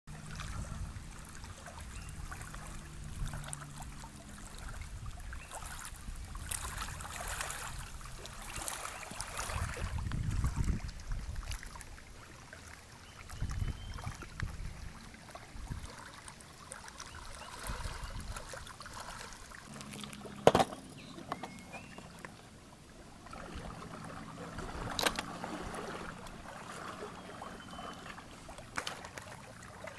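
Small waves lapping against a lake shore, with low rumbles and a few sharp clicks, the loudest about twenty seconds in.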